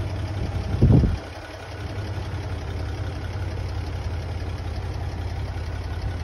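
Toyota FJ62 Land Cruiser's 3F-E inline-six idling steadily, a low even rumble. A brief loud low thump comes about a second in.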